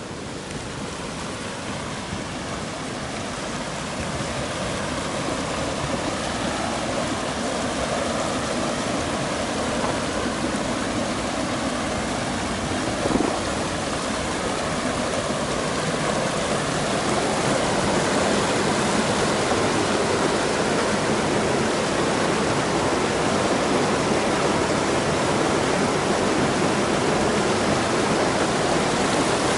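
Rushing water of a shallow, boulder-strewn river running over rapids: a steady rush that grows louder as the river comes near. One brief knock near the middle.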